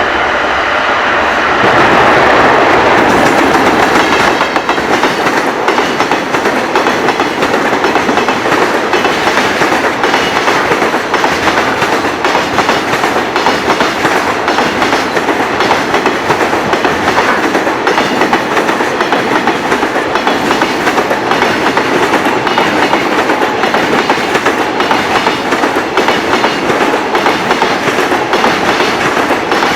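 Container freight train hauled by an EF210 electric locomotive passing at speed, its wagons' wheels clattering over the rail joints in a fast, steady run of clicks. It is louder for the first few seconds, then settles into an even clatter.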